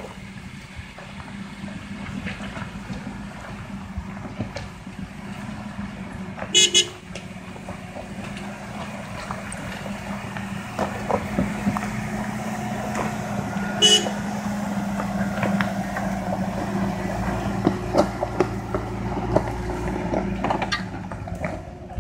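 Off-road SUV engines running as they climb a rocky dirt track, growing louder as they approach. A car horn toots briefly twice, about 7 and 14 seconds in.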